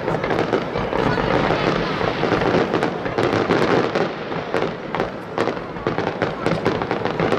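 Fireworks display: aerial shells bursting in quick succession, a dense run of bangs and crackles over a constant rush, thinning briefly about five seconds in.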